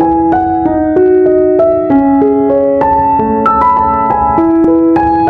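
Background music: a keyboard melody of short held notes, changing about three times a second.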